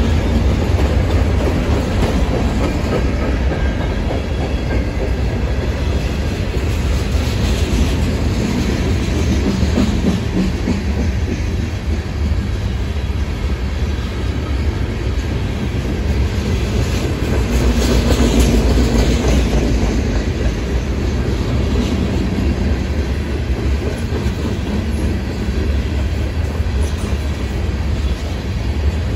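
Freight train's cars, mostly covered hoppers, rolling past at close range: a steady heavy rumble of steel wheels on the rails.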